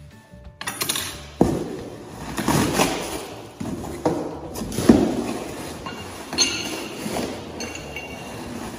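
Steel tube-bender parts clinking and knocking together as they are handled and lifted out of a cardboard box, with sharp knocks about a second and a half, four and five seconds in, the loudest near five seconds.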